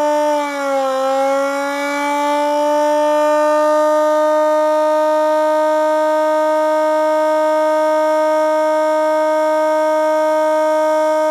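Air raid siren sounding a loud, steady tone. Its pitch sags briefly about a second in, then climbs back and holds level.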